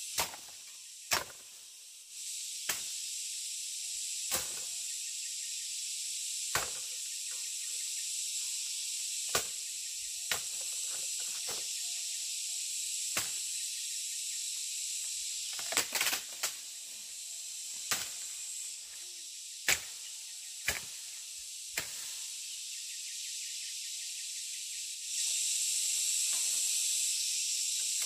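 Steady high insect chorus, getting louder about two seconds in and again near the end, with sharp knocks every second or two from a blade chopping wood.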